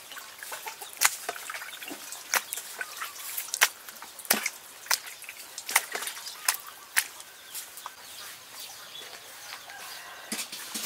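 Irregular sharp clicks and taps, roughly one or two a second, over a faint outdoor background.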